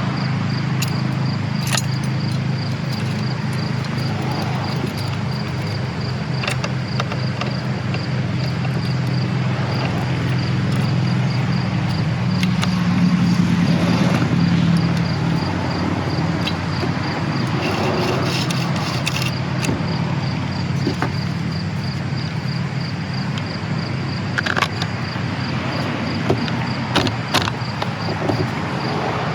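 Steady low background rumble that swells around halfway through, with scattered light clicks and scrapes of chainsaw bar and chain parts being handled and fitted back together.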